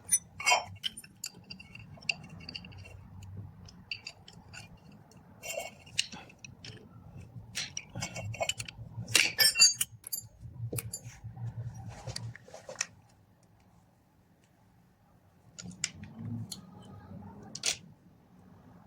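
Irregular metallic clicks and clinks of hand tools and parts being handled, with a brief quiet spell a little past the middle.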